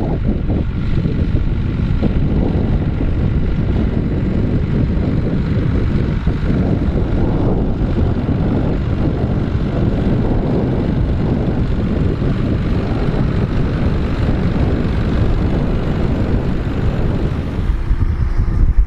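John Deere tractor engine running steadily under ploughing load, with wind buffeting the microphone.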